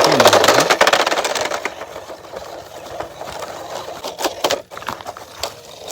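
Small electric motor and gears of a toy remote-control car whirring, loudest in the first second or so and then running on more quietly, with a few sharp clicks near the end.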